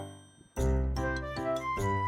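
Background music with bright, jingly pitched notes over a steady beat. It drops away briefly at the start and comes back with a deep bass note about half a second in.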